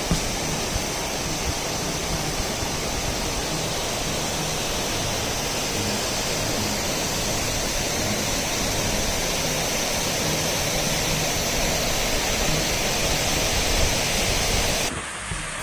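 Bridal Veil Falls, a waterfall, giving a steady, even rush of falling water. It breaks off abruptly near the end.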